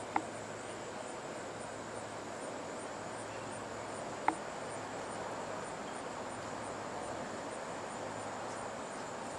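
Steady backyard ambient noise with a faint low hum, recorded through a budget camcorder's built-in microphone. Two short clicks, one right at the start and one about four seconds in.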